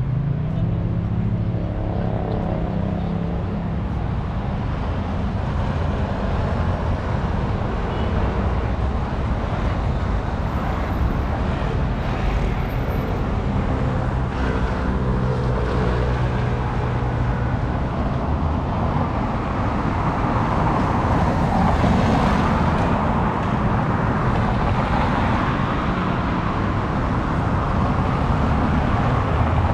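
Steady city road traffic: cars passing with low engine hum and tyre noise, swelling louder about twenty seconds in.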